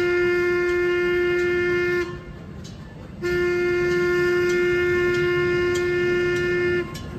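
Steam whistle of Tokyo Disneyland Railway locomotive No. 20 'Mississippi' blowing two long blasts at one steady pitch; the first ends about two seconds in and the second starts about a second later and stops near the end.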